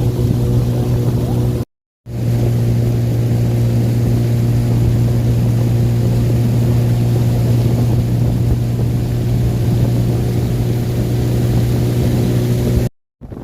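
Motorboat engine running at a steady speed, a constant low drone, with two brief silent breaks: one about two seconds in and one near the end.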